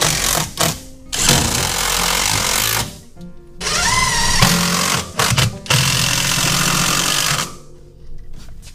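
Cordless drill-driver driving screws in several runs of one to two seconds each, its motor whining up in pitch at the start of one run; the driving stops near the end.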